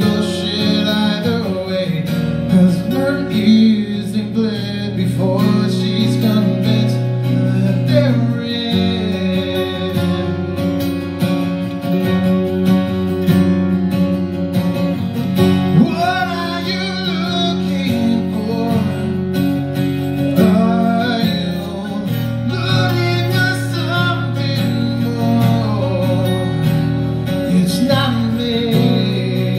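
Acoustic guitar strummed steadily with a man singing over it, a live solo acoustic song.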